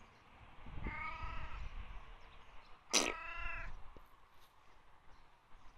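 Domestic cat meowing twice, about two seconds apart, the second meow louder.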